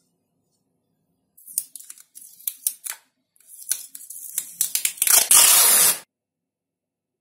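Yellow plastic packing tape handled on its roll: a run of sharp crackles and clicks as the end is picked free, then a loud rip lasting about a second as a long strip is pulled off the roll, stopping sharply.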